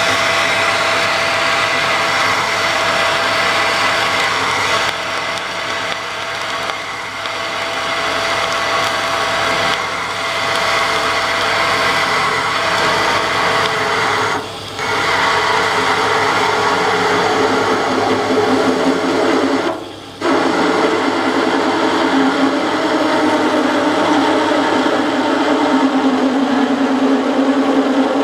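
Lathe drilling 1045 steel with a 32 mm spade drill: a steady, loud cutting and scraping noise that drops out briefly about halfway and again about two-thirds through. After the second break a howling tone rises over the cutting noise and slowly sinks in pitch as the drill nears the end of the deep hole.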